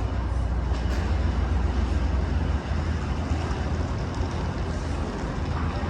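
Train station waiting room ambience: a steady low rumble under a faint general haze of room noise, with a few faint clicks.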